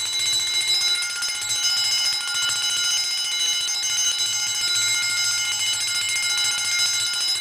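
Emdeko model 115-A wind-up heat detector bell, a 6½-inch gong, ringing continuously as its spring-driven hammer strikes it in a fast, even rattle. The ring is very loud and metallic, with several steady overtones held over the rapid strikes.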